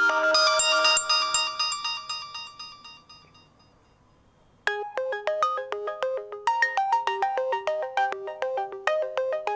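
Oppo A3s stock ringtones: one ringtone's melody dies away over the first three seconds, and after a short silence a new ringtone starts about four and a half seconds in, a fast run of short bright notes repeating a brief melody.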